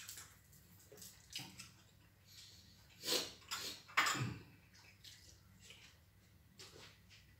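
People eating with their bare hands: soft scraping and clicking of fingers working rice and fish on plates, with chewing, in a few short separate sounds, the loudest about four seconds in.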